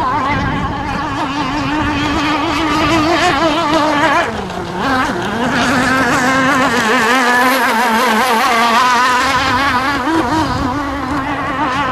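Modified 29.5 cc Zenoah two-stroke petrol engine of an RC racing boat running flat out with a wavering note. About four seconds in the pitch drops and the sound dips, then it climbs back to full speed within a second or so.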